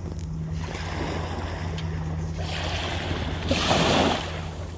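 Ocean waves washing on the shore, with one wave surging loudest about three and a half seconds in and then falling back. A steady low hum runs underneath.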